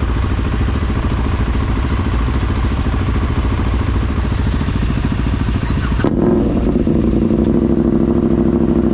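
An off-road vehicle's engine running steadily. About six seconds in the sound changes abruptly: the hiss drops away and a steadier, humming engine note remains.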